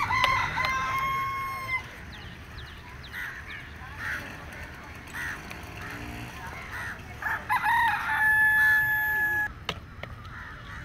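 A rooster crows twice, each a long held call, one at the start and one about eight seconds in, with short bird calls in between. A short knock sounds near the end.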